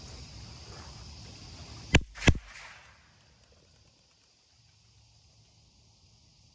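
Two gunshots about a third of a second apart, fired to test a bird dog's steadiness to shot. Insects buzz steadily in the background.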